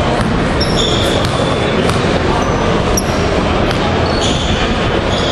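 Basketball bouncing on a hardwood gym floor, with several brief, high sneaker squeaks and scattered voices over the steady din of a large hall.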